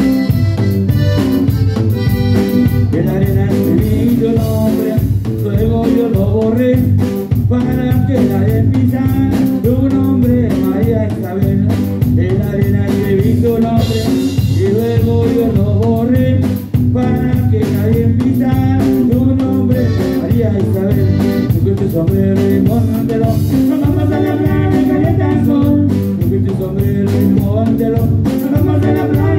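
Live band music: a button accordion plays the melody over an electric bass and a drum kit keeping a steady beat.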